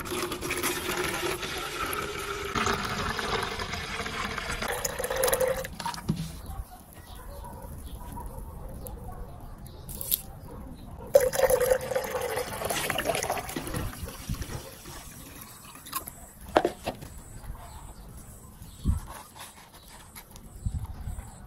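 Clear liquid poured from a plastic bottle into a ribbed plastic jar for about six seconds, the pitch of the pour rising as the jar fills. About eleven seconds in, water is poured in from a plastic scoop for a couple of seconds, followed by a few light knocks of the jar being handled.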